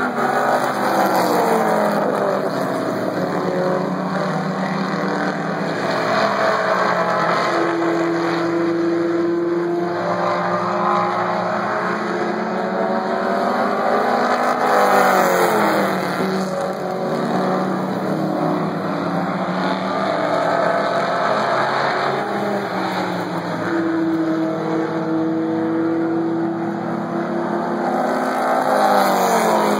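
A field of Pro 4 race cars lapping the oval, several engines running at once, rising and falling in pitch as they accelerate down the straights and lift for the turns. The sound swells and sweeps in pitch about every sixteen seconds as the pack comes around.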